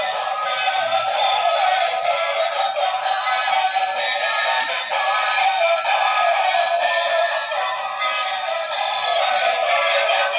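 Tinny electronic song with synthesized singing, playing from the built-in speakers of battery-powered Mickey Mouse robot toys while they dance. It plays steadily, thin and without any bass.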